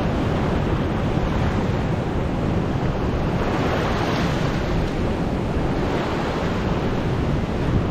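Ocean surf washing and breaking, with wind rumbling on the microphone; the wash swells louder around the middle.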